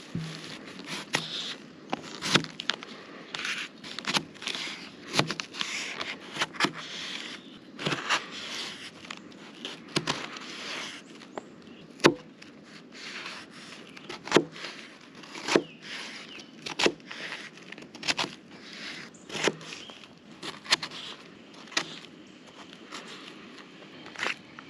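Kitchen knife cutting a raw potato on a paper plate: a series of sharp knocks as the blade goes through to the plate, about one a second, with rustling in the first half.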